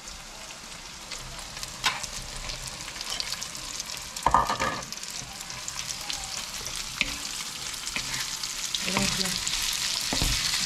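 Raw fish pieces sizzling in hot oil in a wok, the sizzle growing louder as they are stirred with a wooden spatula. A few knocks and scrapes sound against the pan, the loudest about four seconds in.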